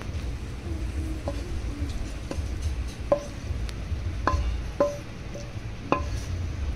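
A metal serving spoon knocking and clinking against a cooking pan while cooked bitter gourd curry is dished out: about seven short, ringing taps spread over several seconds, over a steady low hum.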